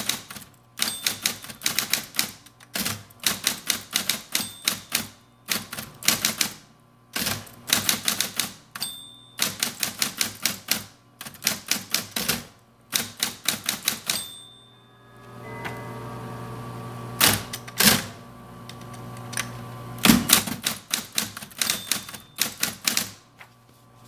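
1970 Smith Corona Coronet Super 12 electric typewriter typing in quick runs of sharp key strikes with short pauses between words and lines, over the steady hum of its running motor.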